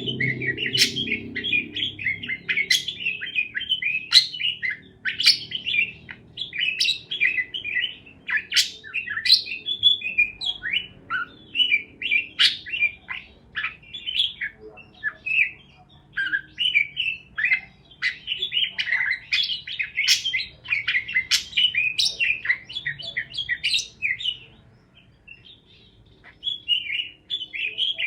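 Pet parakeets chirping and chattering in a rapid, dense stream of short high chirps, with a brief lull a few seconds before the end.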